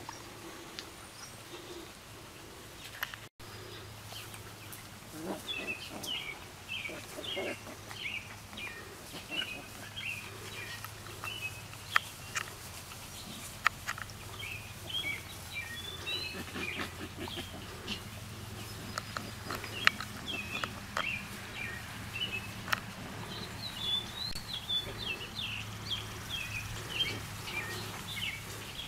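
Birds chirping in repeated short phrases over soft sounds of puppies playing in grass, with a few sharp clicks.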